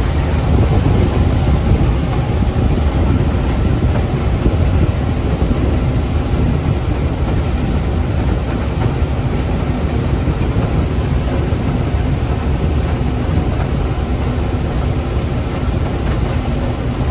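Combine harvester running while harvesting corn: a loud, steady mechanical noise of engine and threshing machinery with a deep low rumble.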